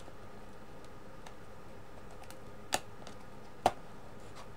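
Two sharp clicks about a second apart, with a few fainter ticks, from a small cardboard product box being handled and turned over on a wooden desk.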